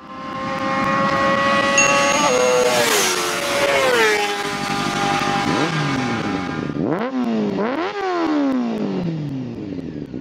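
A vehicle engine running at high revs. Its pitch drops in a few steps, like a series of gear changes, then the revs rise and fall several times over the last few seconds.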